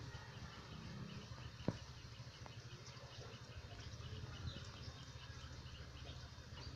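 Faint ambient insect chirping, a steady rapid rhythm of about five short chirps a second, over a low hum. A single sharp click sounds about two seconds in.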